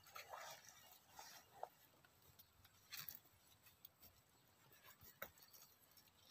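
Near silence, with a few faint, short rustles and ticks in dry grass and leaf litter.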